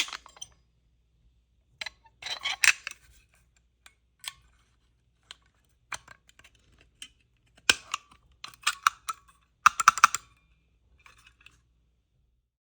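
Hard plastic clicking and clattering in several short bursts, loudest about ten seconds in: a fire alarm removal tool being worked against a smoke detector.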